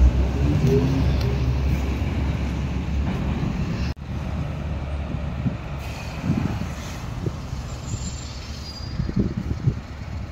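Heavy lorry traffic. A container-hauling truck pulls away with a deep engine rumble that fades. After a break about four seconds in, steady street traffic follows, with an approaching lorry's engine swelling low twice.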